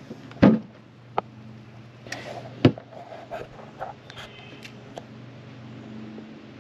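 Hollow knocks on a small plastic boat's hull while a fisherman casts a light spinning rod and starts reeling in: a loud thump about half a second in, a sharper knock a couple of seconds later, then a few small clicks, over a steady low hum.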